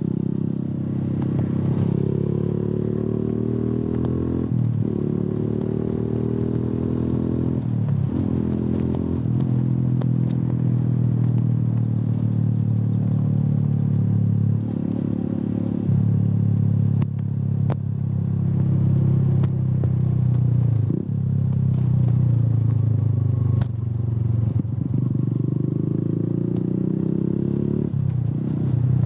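Suzuki Gixxer's single-cylinder engine through an aftermarket Yoshimura exhaust, running under way. The revs fall away and then jump back up every few seconds as gears are changed.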